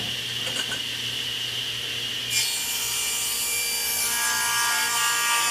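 Saw cutting wood. The sound is continuous, changes character about two seconds in, and cuts off suddenly near the end.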